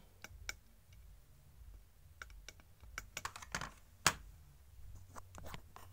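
Irregular light clicks and taps, bunched in quick runs, with one sharper, louder click about four seconds in.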